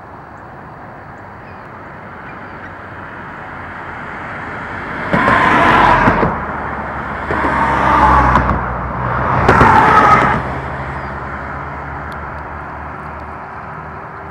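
Road traffic: motor vehicles passing by, the noise swelling to three loud passes about five to ten seconds in and then fading away.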